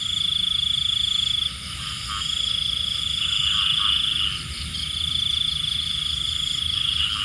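Night chorus of calling animals: a high, pulsing trill that runs for a second or two at a time with brief breaks, over a faint low rumble.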